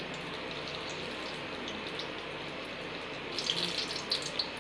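Hot oil sizzling steadily in a kadhai as balls of kohala (ash-gourd and jaggery) dough fry, with a cluster of sharp crackles and spatters about three and a half seconds in as another piece goes into the oil.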